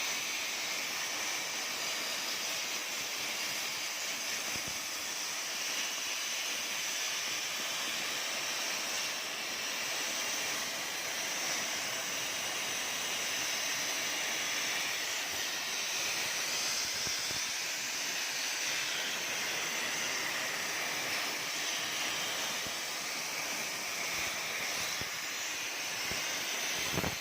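CNC cutting machine running steadily while cutting, a constant high hiss with a faint steady whine in it.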